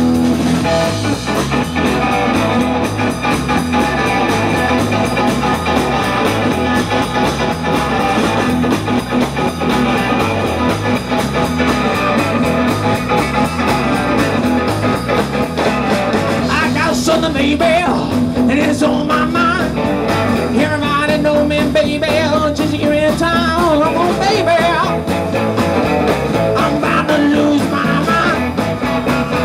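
Live blues band playing a shuffle, electric guitar over a steady bass and beat; through the second half a lead line plays bent, wavering notes.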